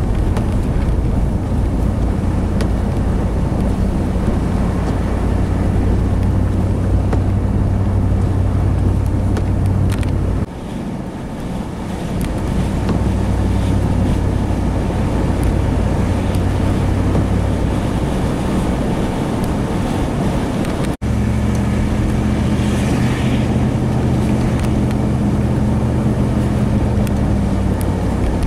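A vehicle running, heard from inside, with a steady low engine hum under road and wind noise. The sound drops briefly about ten seconds in, and cuts off abruptly for an instant about twenty-one seconds in before the hum resumes at a slightly different pitch.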